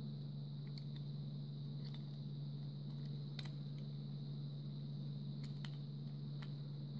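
Several light clicks and taps of the plastic button housing of a butane torch lighter being handled and pressed back into place, over a steady low hum with a faint high whine.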